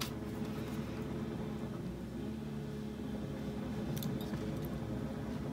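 Steady low background hum, with a few faint clicks of jewellery pliers working thin wire about four seconds in.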